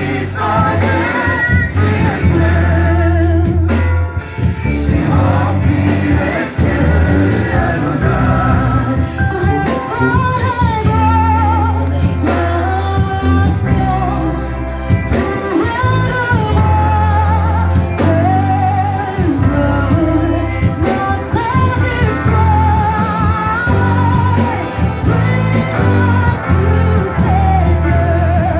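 Gospel worship song: sung melody with a wide vibrato over an amplified band with a heavy bass.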